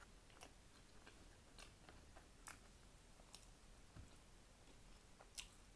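Faint eating sounds: a few soft, scattered clicks of chewing a mouthful of cheeseburger.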